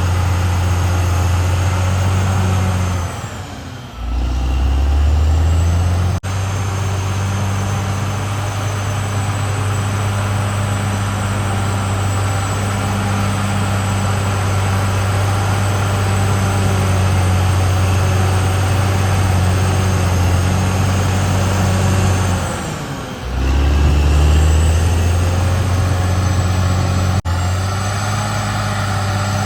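Caterpillar D6R XL bulldozer's diesel engine running steadily. Twice, a few seconds in and again about three-quarters of the way through, its note drops in pitch and level and then climbs back up.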